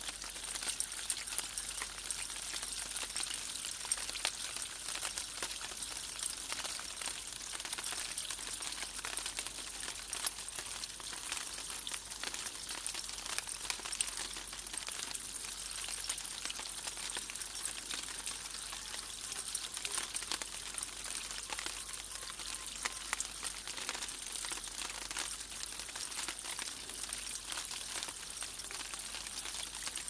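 Water splashing down a cup-style metal rain chain, spilling from each cup into the one below: a steady splashing hiss with many small drips.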